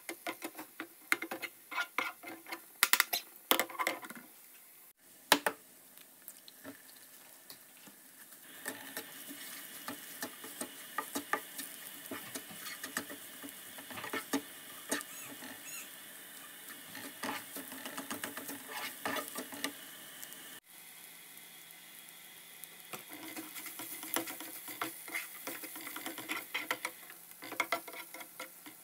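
A plastic spatula scraping and tapping in a non-stick frying pan, stirring and breaking up cooked couscous with vegetables in quick, irregular strokes. A faint steady hum sits behind it for much of the time, and the background changes abruptly twice.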